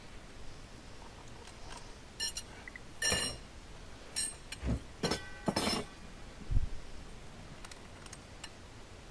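Lengths of copper pipe clinking against one another as they are handled, a handful of sharp knocks, several of them ringing briefly. A duller, lower thump follows near the end.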